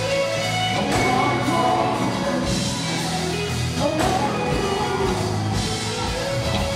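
Live gospel band music: bass guitar, keyboard and drum kit playing steadily, with a voice singing over it.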